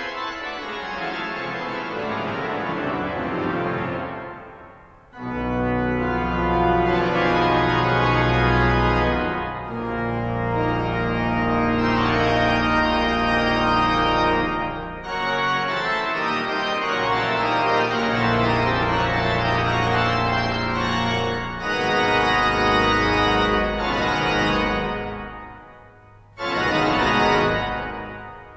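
Pipe organ music: sustained chords over deep pedal notes. The sound dies away twice, about four seconds in and again near the end, and each time new chords start up.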